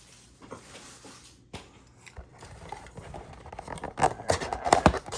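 Cardboard blaster box of trading cards being torn open and handled: faint rustling at first, then a quick run of sharp scrapes and tearing sounds in the last second and a half.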